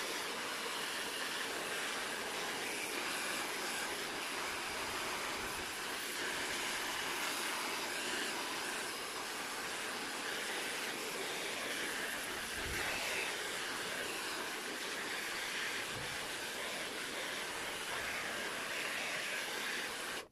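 Handheld hair dryer blowing a steady stream of hot air onto a motorcycle headlight assembly, heating the sealant around the lens so it softens and the lens can be pried off.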